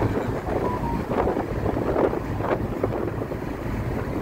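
Road noise from a moving vehicle, with wind buffeting the microphone: a steady rushing rumble.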